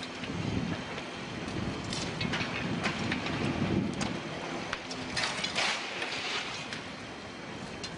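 Rough outdoor rumble with scattered crackles and clicks, a little louder around the middle.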